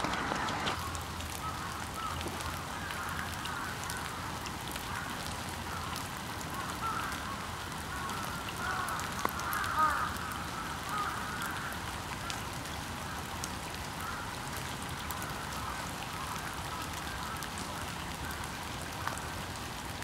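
A flock of ducks on a pond calling continually, many short calls overlapping, busiest around eight to ten seconds in, over a steady faint hiss.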